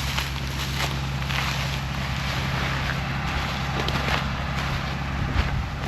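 Combine harvester running steadily, a low engine hum under a rattling machinery haze, with a brief low thump about five seconds in.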